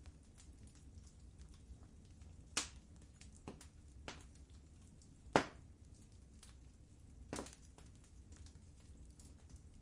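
Wood fire crackling in a fireplace: a low steady rumble of flames under irregular small crackles, with three louder sharp pops, the loudest about halfway through.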